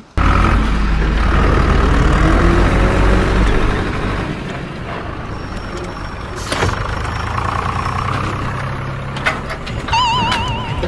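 A loud, low vehicle engine rumble with a hiss, easing after about four seconds. A sharp click comes partway through, and a warbling beep sounds near the end.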